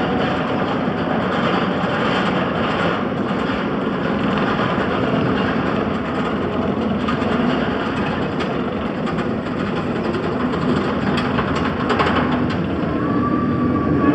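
Riddler's Revenge, a steel stand-up roller coaster, running on its track: a steady, loud rumble with some faint clicking.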